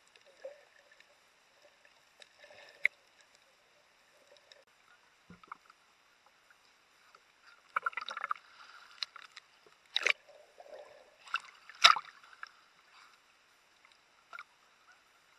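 Water splashing and sloshing around a waterproof camera housing as it moves with snorkelers at the surface: muffled and sparse at first, then a run of splashes from about halfway, with two sharp, louder splashes near ten and twelve seconds in.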